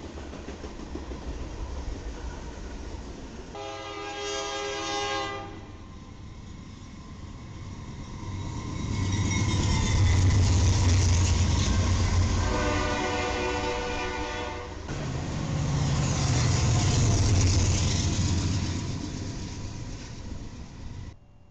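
Freight train passing with wheel and car rumble. A diesel locomotive horn sounds about four seconds in. BNSF diesel locomotives then pass close with loud engine rumble, a second horn blast of about two seconds comes in the middle, and the sound cuts off suddenly near the end.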